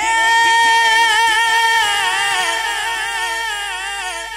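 A man singing a naat into a microphone, holding one long note that breaks into small wavering ornaments and slowly fades.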